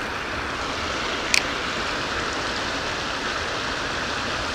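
Steady rush of water pouring over a small pond's dam spillway into the pool below. A single short, sharp click about a second and a half in.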